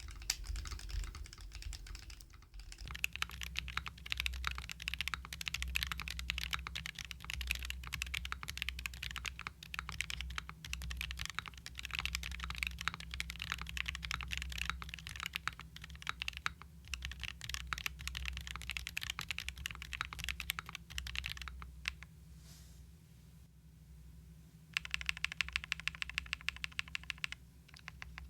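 Typing on a QK65 gasket-mount mechanical keyboard with stock TTC Venus linear switches, a POM plate and Domikey ABS keycaps: a fast, steady clatter of keystrokes. Near the end, a quick even run of repeated strokes.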